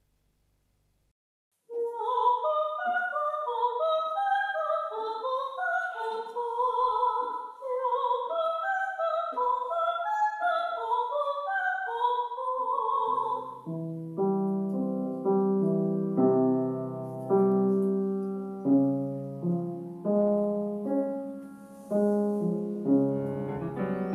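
A soprano voice singing opera in a high register with a wide vibrato, starting after a couple of seconds of silence. About halfway through the singing stops and an upright piano takes over, playing a slow line of struck notes and chords that each ring and die away.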